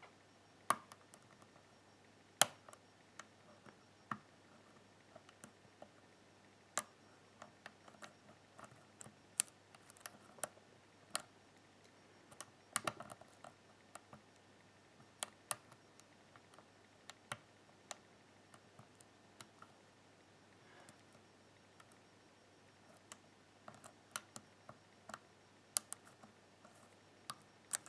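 Irregular, faint clicks of a lock pick working the pin stack of a BKS five-pin euro cylinder lock held under light tension, with now and then a sharper click.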